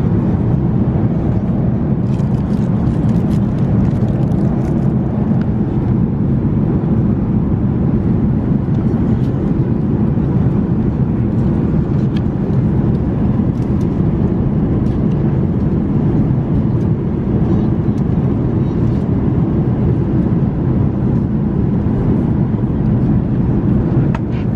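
Airbus A380 economy cabin noise in cruise flight: a steady, even low rumble of airflow and engines. A few faint crackles come about two to five seconds in.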